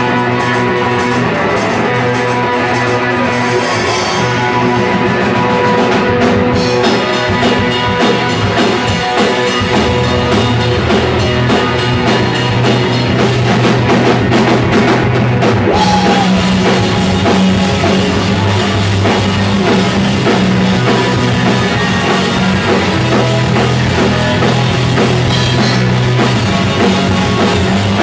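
Live rock band playing: a drum kit with steady cymbals and electric guitars, the low notes growing heavier about halfway through.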